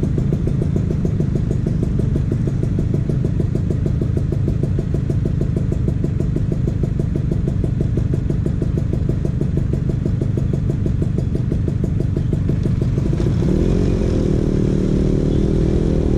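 Vespa PX 150's single-cylinder two-stroke engine running through a DRC Victory racing exhaust with a steady, even pulsing beat. About thirteen seconds in, the pitch rises and wavers as the throttle is opened.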